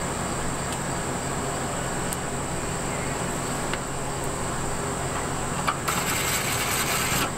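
Cordless drill driving screws into the furnace exhaust vent frame on the camper's side near the end, over a steady low background hum.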